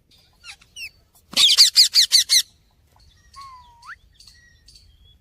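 Pet parrot calling: a few soft chirps, then a quick run of about six loud, harsh squawks, and later a single whistle that dips and then sweeps sharply up.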